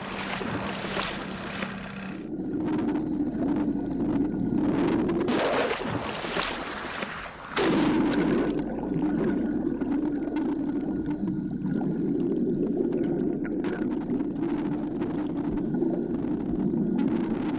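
A boat's engine running as a steady low drone, heard underwater through a submerged camera. Rushing water noise fills the first two seconds and returns briefly around six to seven seconds.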